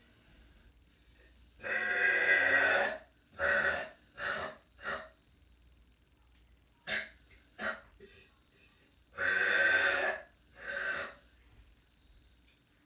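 A woman burping several times from another room with the door shut: two long belches, each followed by shorter ones.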